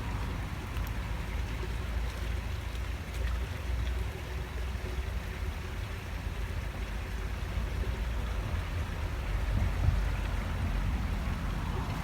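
Steady low rumble of wind on the microphone over the even hiss of flowing river water.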